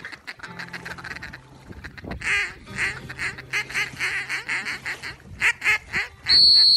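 A duck quacking in a fast run of calls, about three a second. Near the end comes a short, loud, shrill whistle blast on one steady pitch.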